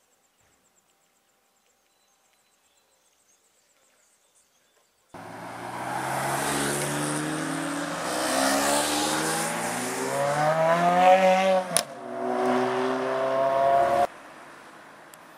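Near silence for about five seconds, then a supercar engine accelerating hard, its pitch rising steadily. A sharp crack and a brief drop in level come about seven seconds in, then the pitch climbs again before the sound cuts off suddenly, leaving a quieter hiss.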